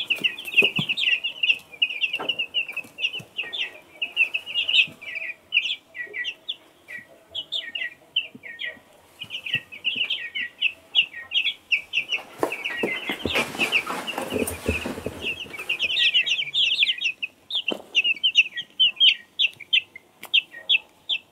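Chickens calling continuously in a rapid stream of short, high-pitched peeps, with a louder, rougher sound lasting about three seconds a little past the middle.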